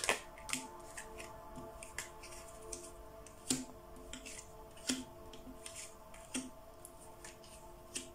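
Tarot cards being drawn and laid down on a table: a handful of sharp card snaps and taps spread through, over faint steady background music.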